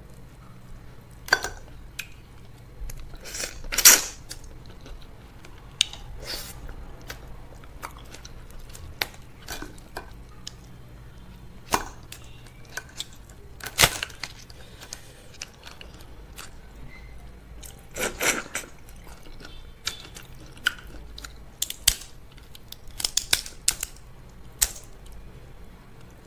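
Close-miked eating of crab with fufu and okra soup: chewing with scattered sharp cracks and clicks, some in quick clusters, the loudest about four seconds in and again near fourteen seconds.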